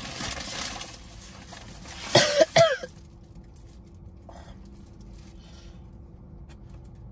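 A person coughing, three quick coughs in a row a little after two seconds in, after a breathy stretch at the start.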